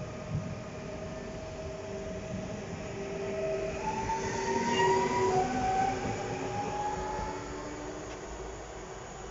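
Koleje Mazowieckie EN76 electric multiple unit pulling out and accelerating: a rumble of wheels on rail under an electric whine that rises in pitch, loudest about five seconds in.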